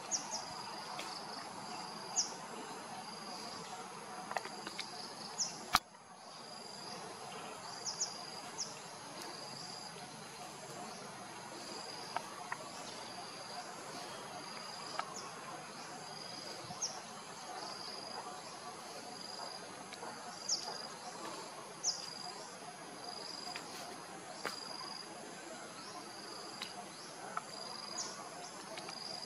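Insects calling: a steady high-pitched trill with short chirps repeating every second or two, over a low outdoor hiss. A few sharp clicks break in, the loudest about six seconds in.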